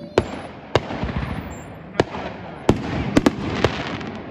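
Aerial fireworks shells bursting overhead: about seven sharp bangs at irregular spacing, two of them close together near the end, with a low rumble between them.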